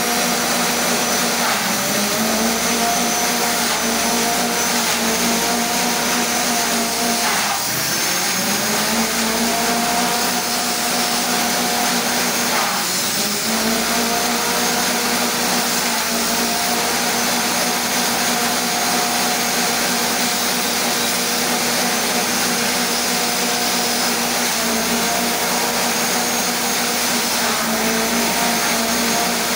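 Small engine-driven forage chopper running at high speed with a steady whine. Its pitch sags briefly several times, most deeply about a quarter and nearly halfway through, as stalks are fed in and the engine labours under the load, then picks back up.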